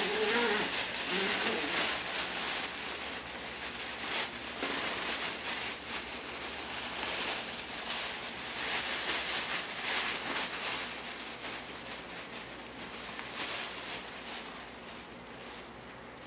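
Crinkling and rustling of a fabric pet play tunnel as a puppy scrambles inside it, a dense scratchy rustle with many small clicks that gradually dies down toward the end.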